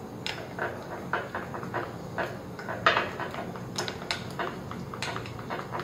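Clear plastic spoon stirring thick glue-based slime mixture in a glass bowl, with irregular scrapes and taps of the spoon against the glass.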